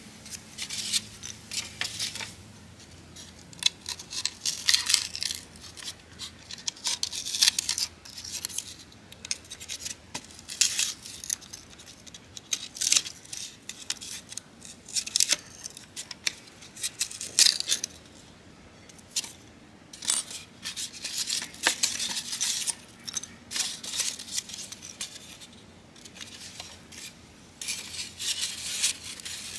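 A craft knife scoring and cutting round holes in a white disposable lunch box lid: irregular runs of short, scratchy strokes, with brief pauses between cuts.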